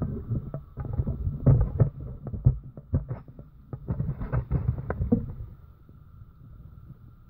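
Irregular knocks, taps and rustles from a wire animal cage being jostled and handled as an Asian palm civet moves about in it, thickest in the first five seconds and then dying down. A faint steady high tone runs underneath.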